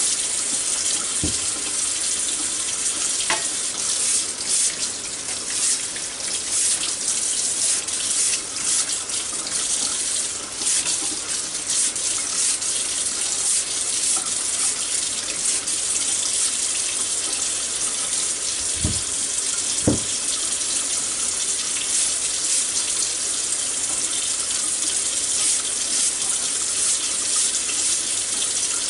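Kitchen faucet running steadily into a stainless steel sink as ears of corn are scrubbed with a brush under the stream. A few brief knocks, two of them close together about two-thirds of the way through.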